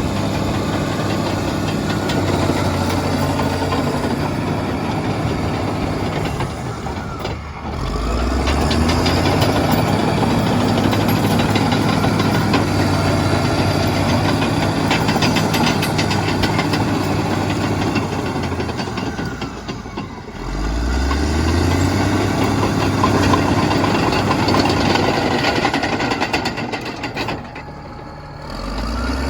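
Caterpillar D6R XL bulldozer's diesel engine running. Three times its speed sags and then climbs back up in a rising sweep.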